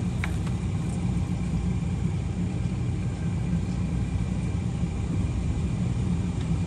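Four 400 hp outboard motors idling together with a steady low rumble.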